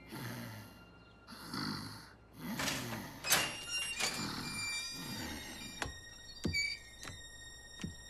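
Cartoon pug snoring in its sleep: a run of slow, noisy breaths in and out. After about six seconds there are a few light, sharp clicks.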